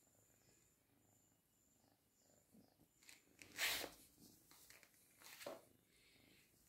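Faint purring of a young tabby kitten, with two short loud rustles, about three and a half and five and a half seconds in, as the kitten brushes its fur against the microphone.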